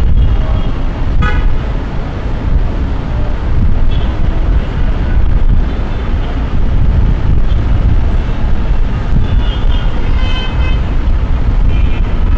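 Busy city street traffic: a steady, loud rumble of engines and tyres, with short car horn toots about a second in, around four seconds, and again near the end, the longest lasting about a second.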